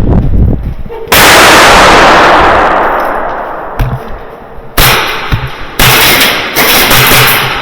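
Airsoft gas blasts: one sudden loud blast about a second in that hisses and fades over about two seconds, then two more loud bursts of about a second each.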